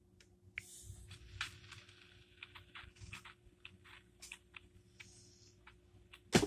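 Faint handling noise from a phone held in the hand: scattered light clicks and soft rustles, with one sharp, louder knock just before the end, over a faint steady hum.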